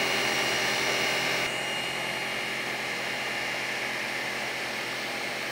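Steady fan-like hiss of background noise, with no distinct knocks or scrapes, that drops a little in level about one and a half seconds in.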